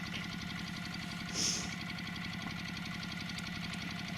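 Safari vehicle's engine idling steadily, with a brief hiss about a second and a half in.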